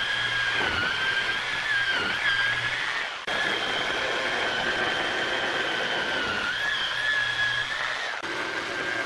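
Rotary hammer drill boring into a wall: a steady motor whine over a rough hammering rattle, the pitch dipping briefly now and then as the bit bites.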